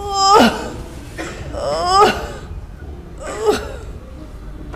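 A woman's wordless high-pitched cries, three of them about a second and a half apart, each ending in a steep downward slide in pitch, the first the loudest. They are the sounds of religious ecstasy, 'drunk in the Spirit', in which she cannot speak.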